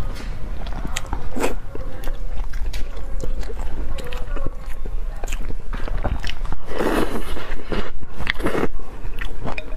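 Close-miked eating sounds: chewing with many short wet mouth clicks, then loud slurps of noodles about seven and eight and a half seconds in.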